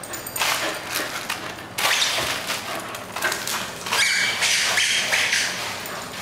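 Bull terrier's claws scrabbling and skidding on a polished tile floor, with thuds from the plush toy it pounces on and carries off, louder in surges about two and four seconds in.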